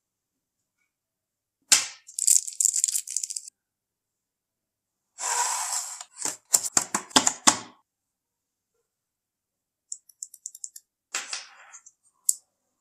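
Close-up handling of neckband earphones and their packaging, in separate bursts. A sharp click and a short rattle come first. Then a rush and a quick run of clicks and knocks as the earphones are worked out of their moulded plastic tray, and near the end light ticks, a rustle and one last click.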